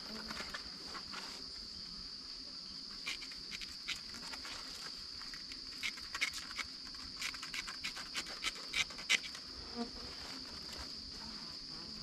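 Crickets trilling steadily in a high, even tone. A run of irregular sharp clicks and taps starts about three seconds in and is thickest in the second half.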